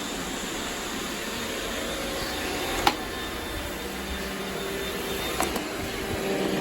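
Robot vacuum cleaners running steadily with a motor hum and brush whir while picking up confetti, with two sharp clicks, about three and five and a half seconds in.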